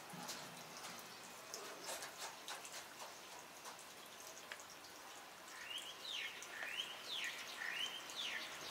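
Scattered drips and ticks of water on wet ground. From about halfway, a bird chirps over and over in short notes that rise and fall in pitch.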